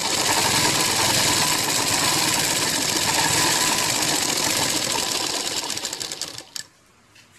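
Sewing machine stitching steadily at speed, a fast even run of needle strokes, as a lining hem is sewn onto a sleeve's lace edge. It slows and stops about six and a half seconds in.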